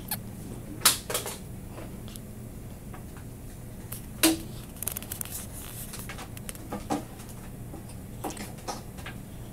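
Premature newborn baby girl hiccuping: short sharp clicks every few seconds, one of them with a tiny squeak, over a steady low hum.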